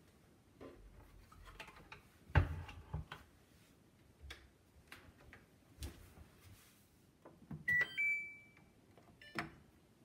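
Samsung front-loading washing machine door shut with a sharp click and thump about two and a half seconds in, with lighter handling clicks around it. Near the end the control panel gives short high beeps as its buttons are pressed.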